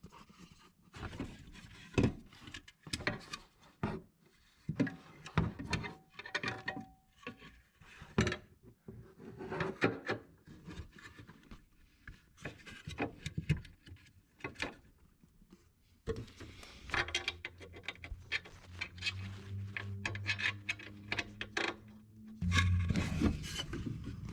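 A replacement car horn assembly being handled and fitted back into place, with irregular clicks, knocks and scraping of metal and plastic parts. About two-thirds of the way through, a steady low hum starts underneath and grows louder near the end.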